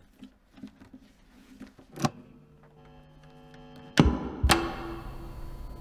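Guitar lead being plugged in: a sharp click about two seconds in and two loud pops near the end, each leaving a steady electrical hum from the amplifier.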